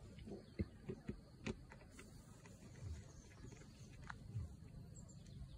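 Faint, scattered clicks and light knocks of a plastic fiber-optic splice box lid being handled, with a few soft low thumps.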